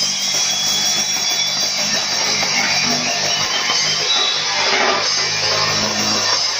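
Live punk band playing an instrumental stretch: amplified electric guitar, bass and drums, loud and continuous with no vocals.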